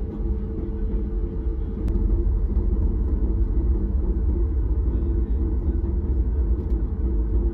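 Steady low rumble of a Boeing 737 MAX 8's cabin, engine and airflow noise heard from an economy seat, with a steady hum running through it; it grows a little louder about two seconds in.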